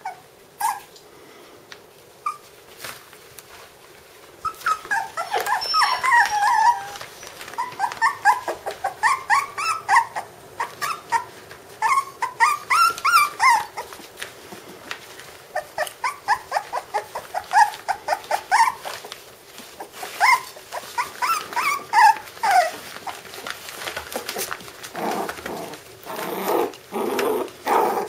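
Five-week-old puppies play-fighting, giving many short, high-pitched squeaky yelps and play-growls from about four seconds in. Near the end the calls turn lower and more growly.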